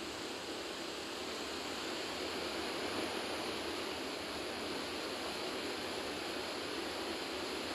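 Steady rush of a swift mountain river tumbling over small waterfalls, an even hiss with no breaks.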